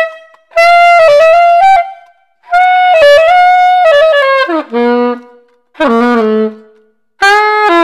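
Soprano saxophone played in short phrases separated by brief pauses, several of them running down to a held low note; a play test of the freshly cleaned and repaired horn.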